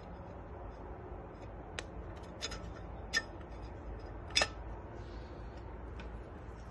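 A handful of light metallic clicks as clutch plates are set by hand into a 4L60E automatic transmission case, the plate tabs knocking against the case as they seat. The clicks are spaced irregularly, the loudest a little over four seconds in, over a low steady hum.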